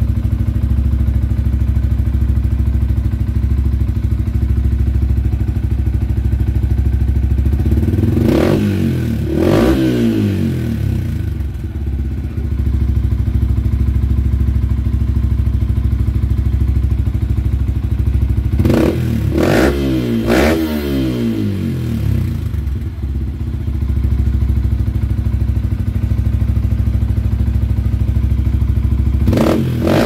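Yamaha Sniper 155's single-cylinder four-stroke engine idling through an aftermarket replica Pro GP-type exhaust, blipped in short free revs that rise and drop back to idle: two about eight seconds in, two or three more around twenty seconds, and another pair starting just before the end.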